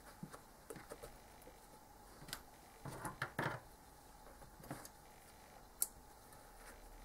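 Faint handling sounds of hand sewing: cotton fabric rustling and thread being drawn through as a small appliqué is tacked down, in scattered soft brushes and taps with a short cluster in the middle. A single short, sharp click comes near the end.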